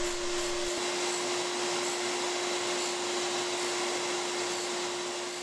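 Tool-and-cutter grinder running a coarse abrasive wheel, a steady motor tone with a rushing noise over it, fading near the end.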